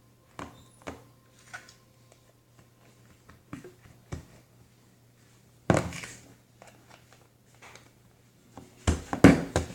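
Small plastic slime containers being handled on a table: scattered light clicks and knocks, one sharp knock about six seconds in and a quick run of clattering knocks near the end.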